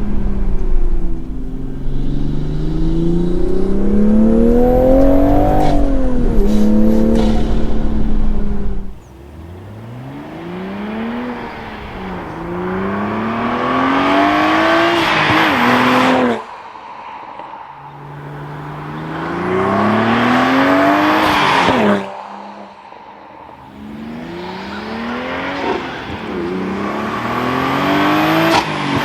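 Turbocharged B58 straight-six of a six-speed manual Toyota Supra, fitted with an Armaspeed carbon fibre cold air intake, pulling hard through the gears. The engine note climbs again and again, and a rising intake and turbo rush cuts off sharply at each gear change. A heavy low rumble lies under the first third.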